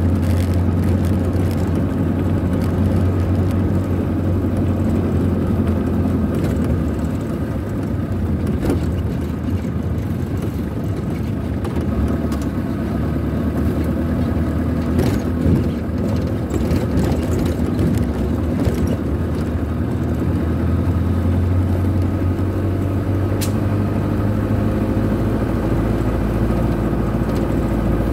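Vehicle engine running steadily as it drives, heard from inside the cab, with a few knocks and rattles about halfway through and the engine note rising slightly near the end.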